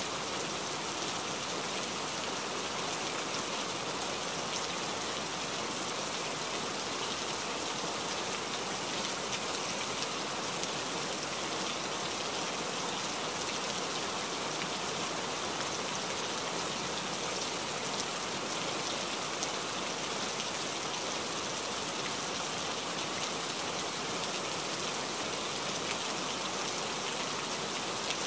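Steady rain falling: an even hiss with many fine drop ticks, unchanging throughout.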